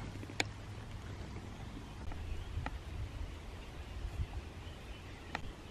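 Outdoor ambience: a steady low rumble with three sharp clicks, one about half a second in, one near the middle and one near the end.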